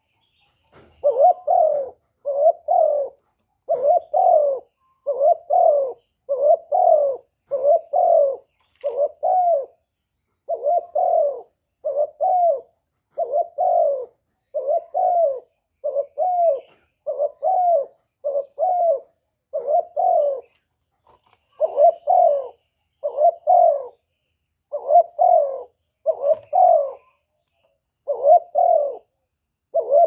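Spotted dove cooing: a long series of short, low coos, roughly one a second, broken by a few short pauses.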